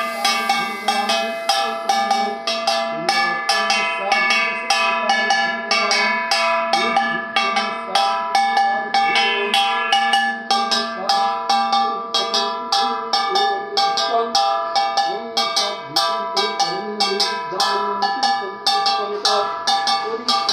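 Brass puja hand bell rung steadily and continuously, about three to four strikes a second, its ringing tones sustained between strokes.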